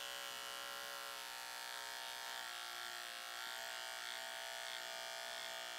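Cordless Remington beard trimmer running with a steady buzz as it trims the hair behind the ear.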